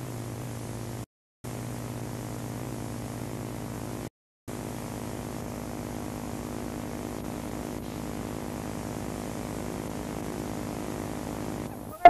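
Steady low hum with a buzz of overtones, broken twice by short dead-silent dropouts, about a second in and about four seconds in.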